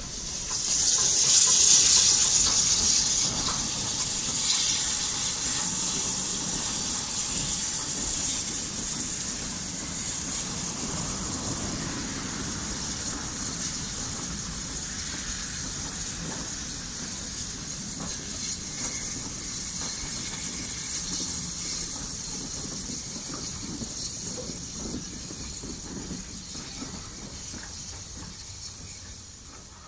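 Steam locomotive passing under a bridge, a loud hiss of steam starting suddenly about half a second in and slowly fading, over the low rumble of its coaches rolling away.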